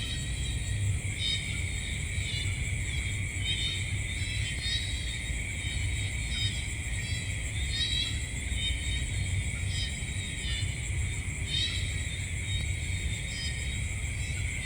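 Night-time nature ambience: a steady high insect drone with a short chirping call repeating about once a second, over a low steady rumble.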